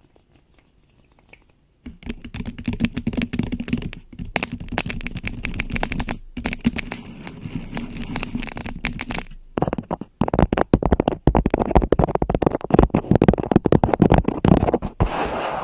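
Scratching and rubbing right on a microphone, a dense crackle of scrapes that starts about two seconds in, stops briefly twice and grows louder past the middle.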